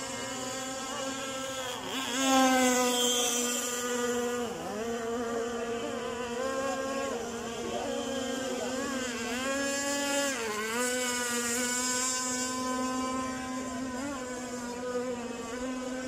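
Remote-control electric speedboat motor whining at speed. Its pitch dips and picks up again several times, and it swells loudest about two seconds in.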